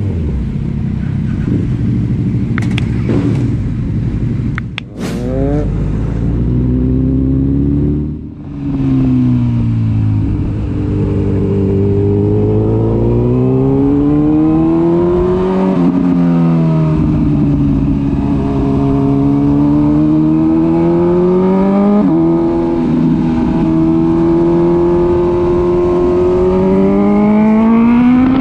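Honda CB1000R's inline-four engine heard from on the bike, its pitch rising and falling in long sweeps as it accelerates and eases off. There are a couple of brief drops in level about five and eight seconds in, where the revs cut and pick up again.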